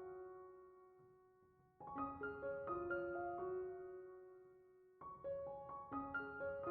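Background piano music: short runs of notes that ring out and die away, with a new run starting about two seconds in and again about five seconds in.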